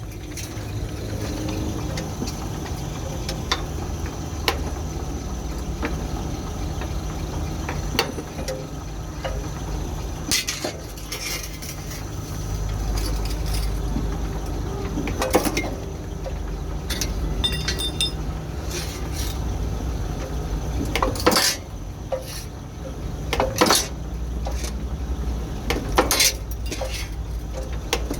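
Five-function punch-and-shear machine (ironworker) running with a steady low hum. Its load grows twice, and sharp metallic clanks come every few seconds.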